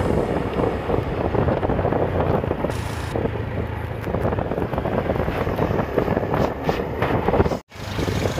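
Small motor scooters running as they ride along a dirt path toward the microphone, over a steady rush of wind on the microphone. The sound drops out for a split second near the end.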